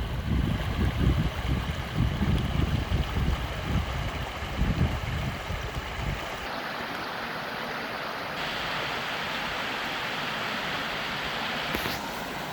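Flowing stream water, a steady rushing hiss, with heavy wind buffeting on the microphone for about the first six seconds. The sound then changes abruptly to a smoother, brighter rush of water.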